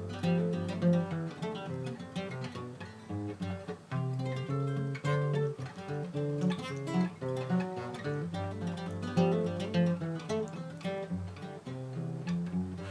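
Background music: acoustic guitar picking a melody over bass notes.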